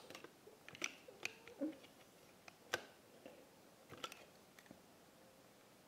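A few light, scattered clicks and taps of small plastic Polly Pocket toys being handled.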